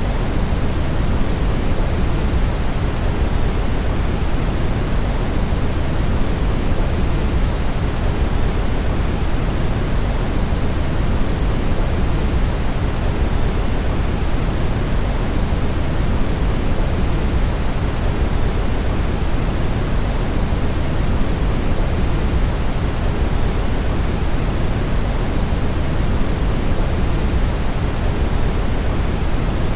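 Steady brown noise: a constant, featureless rushing hiss weighted heavily toward the bass, with the treble well down.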